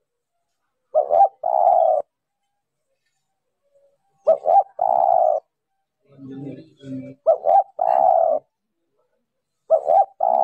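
Spotted dove cooing: four phrases about three seconds apart, each two quick notes then a longer held coo. A lower, quieter two-part coo comes between the third and fourth phrases.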